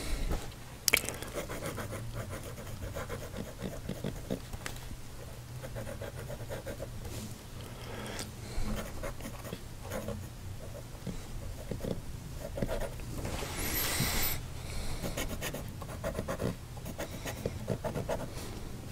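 Medium steel nib of a Wing Sung piston-fill fountain pen scratching across paper in a run of short writing strokes, with one longer, louder stroke about two-thirds of the way through.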